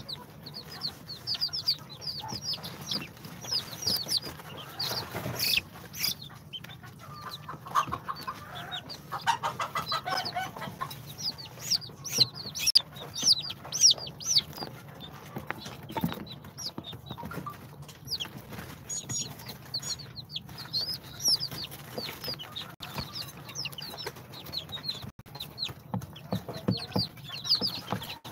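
A brood of day-old chicks of İspenç, Brahma, bantam Cochin and Sultan breeds peeping without pause: many short, high chirps that fall in pitch and overlap. Scattered light clicks and a faint steady low hum sit underneath.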